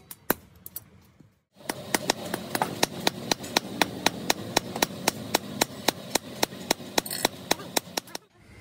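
Hand hammer striking a red-hot billhook blank of leaf spring steel on a small anvil block, drawing out and shaping the blade: a couple of blows, a brief break, then a steady run of sharp metallic strikes about four a second.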